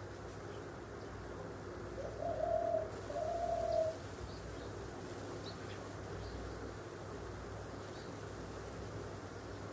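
A dove cooing twice about two seconds in, two notes each under a second long, over a steady low hum.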